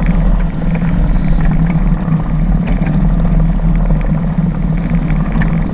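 Steady loud rumble of wind buffeting the microphone and water rushing past a small sailboat under way.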